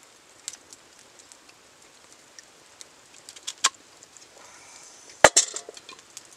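A knife chopping through raw root vegetables onto a wooden log chopping block: a few sharp knocks, the loudest near the end. Soft crackling from the wood fire runs in between.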